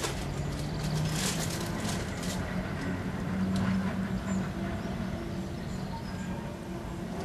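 Diesel engine of a Class 08 shunting locomotive running steadily at low revs as it creeps forward through the yard, a low even hum with a few faint clicks from the wheels over the pointwork.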